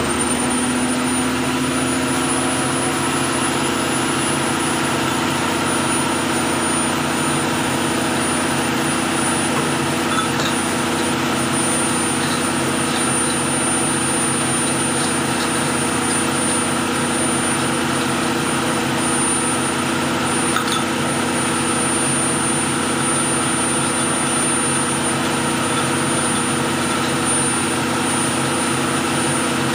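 Fishing trawler's engine running steadily under way, a constant drone with a steady high whine above it.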